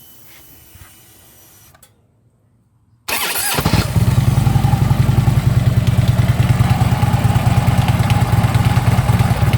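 Harley-Davidson Ultra Limited V-twin started on the electric starter about three seconds in. It catches within half a second and settles into a steady, loud idle with a rattle from the lower end that the owner can't place and says is almost like something's loose.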